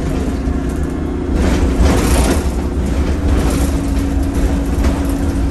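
A moving bus heard from inside its passenger cabin: a steady low engine and road rumble with a constant hum. Louder spells of road and body noise come through about a second and a half in and again a little later.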